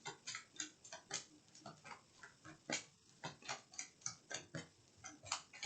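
Tarot cards being shuffled and handled: a quick, irregular run of soft ticks and taps as the cards slap and slide together.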